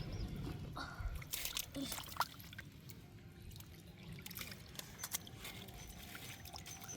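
Shallow canal water trickling and sloshing, with scattered small splashes and knocks as it is stirred by hand.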